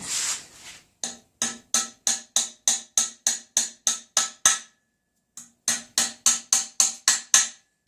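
Hammer tapping aluminium drive rivets in to fix the serial-number plate on a Ridgid 4x6 metal-cutting bandsaw: quick, even metallic taps about three a second, each with a brief ring, with a pause of about a second midway before the tapping resumes.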